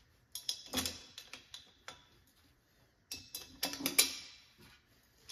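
Small metal clicks and clinks of bolts and an aluminium intake tube being handled and fitted together by hand, in two short bursts with quiet between.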